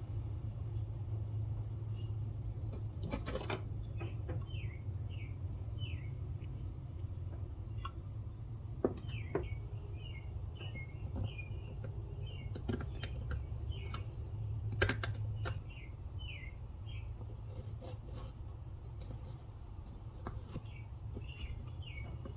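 A small bird chirping in quick runs of short, falling notes over a steady low rumble, with scattered light clicks and taps.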